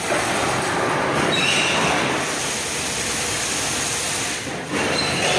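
Chain link fence machine running, its belt-driven flywheel and chain drive making a steady metallic clatter, with a brief high squeal about a second and a half in and a short lull near the end.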